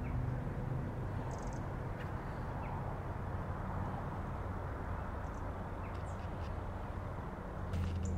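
Open-air countryside ambience: a steady rushing background with a few faint, brief high bird chirps. Just before the end a low, steady engine hum comes in.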